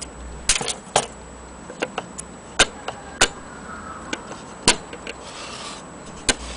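An antique French mantel clock being handled and turned on its base: a series of irregular sharp clicks and knocks, with a brief rubbing sound about five seconds in.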